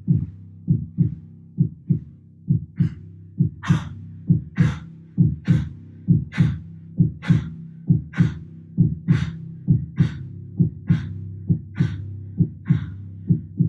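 Slow ambient music with a deep, heartbeat-like drum pulse about twice a second over a steady low drone. From about two and a half seconds in, a swishing, hissing accent joins about once a second and stops just before the end.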